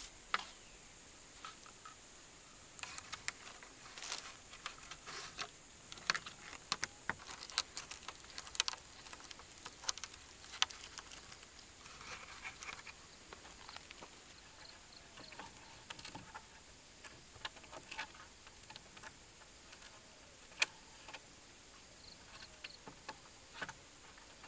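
Dry bamboo strips being handled and wrapped around a bamboo fence joint: irregular crackles, snaps and rustles, busiest in the first half. A faint steady high-pitched hum runs behind.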